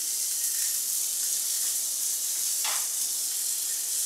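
Fish pieces searing in a hot pan on a gas burner, giving a steady sizzle.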